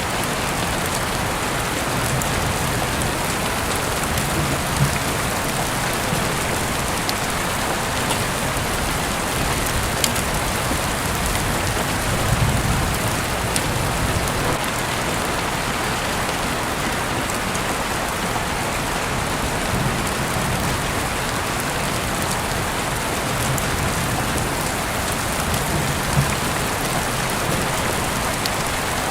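Steady rain falling, an even hiss of drops on surfaces, with a low rumble that swells and fades every few seconds and a few isolated sharp clicks.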